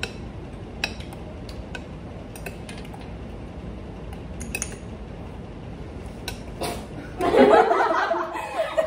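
Light clinks of spoons against small bowls and dishes, a few at a time, over room hum. About seven seconds in, a group breaks into loud laughter.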